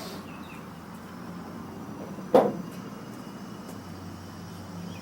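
Steady low background hum with a single sharp knock a little over two seconds in, from the snowblower's belly pan being handled as it goes back on.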